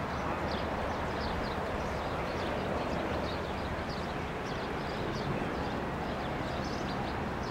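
Steady open-air noise, with wind rumbling on the microphone, under many short high chirps of small birds.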